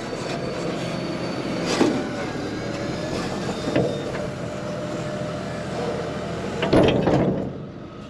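Tractor-mounted hay mower rattling steadily as it swings down from its raised transport position, with a few metallic clunks about two and four seconds in and a louder burst of clunks near the end.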